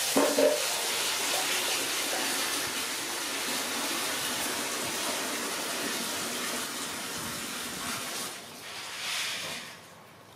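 A steady rushing hiss like running water, which drops away near the end after a brief swell. A short pitched sound right at the start.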